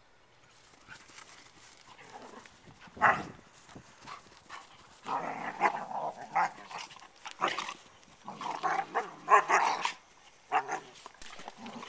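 Two dogs, a yellow Labrador and a shaggy black dog, play-wrestling and barking: one sharp bark about three seconds in, then a long run of rough play barks from about five seconds on, with a few more near the end.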